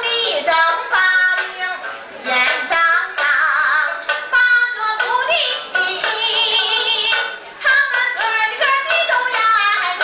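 A woman singing a Chinese folk song, with quick turns in pitch and vibrato on held notes. Sharp clicks are heard between phrases.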